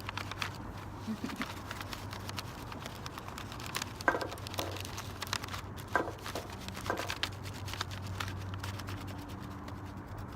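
Crayon rubbing over paper laid on a leaf: quick scratchy strokes with paper and leaf crinkling, and a couple of sharper taps about four and six seconds in.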